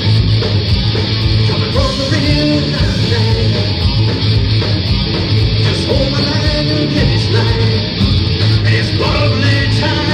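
Rock band playing live, with electric guitar, bass guitar and drums and a lead singer, loud and without a break.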